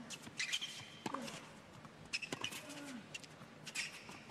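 Tennis rally on an indoor hard court: racket strikes on the ball about every second and a half, several followed by a player's grunt that falls in pitch, with short high shoe squeaks on the court surface.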